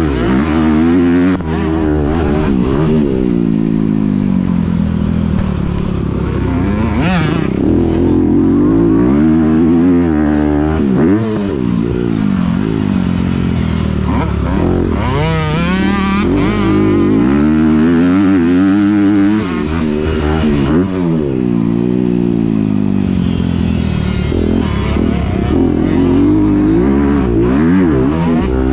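Motocross dirt bike engine heard from a camera mounted on the bike. It revs up and falls away over and over as the throttle is opened and shut through jumps and turns.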